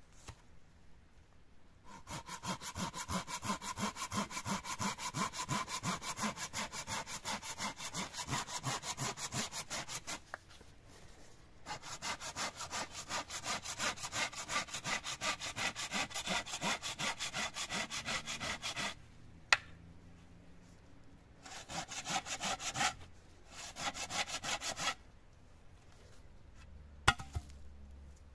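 Folding pruning saw cutting through a wooden pole with quick back-and-forth strokes, in several runs with short pauses between them. A couple of sharp knocks fall in the pauses.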